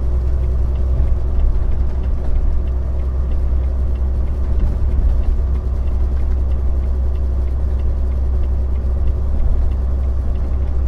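Steady low drone of a Volvo semi-truck's diesel engine and tyre noise heard from inside the cab while cruising at a constant speed.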